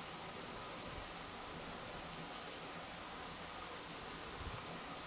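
Quiet outdoor ambience: a steady hiss with insects buzzing and scattered short, high chirps.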